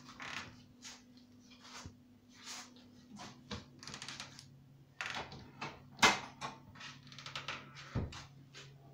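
Irregular clinks and clatters of dishes and utensils being handled on a kitchen counter, with one sharper knock about six seconds in, over a steady low hum.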